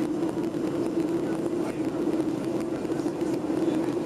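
Steady drone of a Boeing 737-800's CFM56 jet engines and rushing air, heard inside the passenger cabin in flight, with a constant low hum.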